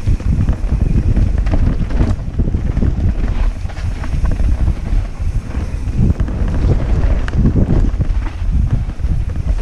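Wind buffeting the microphone of a helmet-mounted camera on a fast ride down a rough dirt trail. A heavy, uneven low rumble carries scattered short knocks and rattles from the bike running over the ground.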